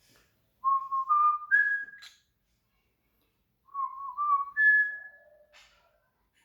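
Clear whistling in two short phrases, each made of held notes that step up in pitch, the second phrase ending on a lower note.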